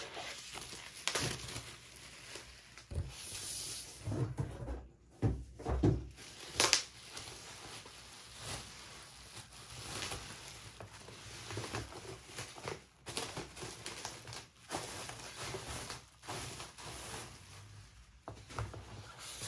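Bubble wrap crinkling and rustling as it is handled and pulled off a large box, with cardboard scraping and short knocks, loudest about five to seven seconds in.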